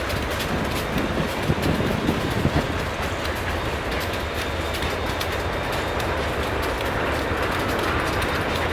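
Loaded steel coil cars of a freight train rolling past, their wheels clattering over the rails with a steady low rumble. A few louder knocks come between about one and three seconds in.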